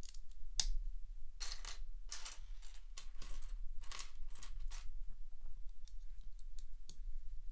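Small plastic LEGO pieces clicking and clattering as they are handled and pressed together, in quick runs of clicks during the first half, then sparser.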